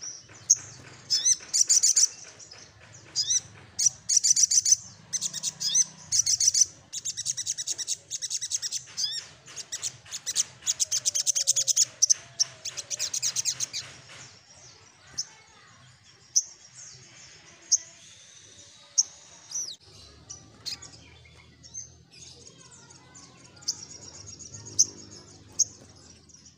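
Sogok ontong sunbird singing: high, fast chattering trills in quick bursts through roughly the first half, then sparser single sharp chips and short phrases.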